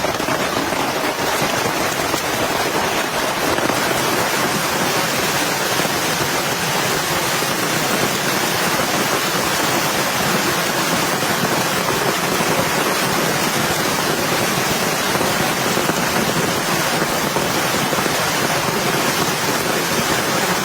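Heavy rain falling steadily, an even unbroken downpour that holds the same level throughout.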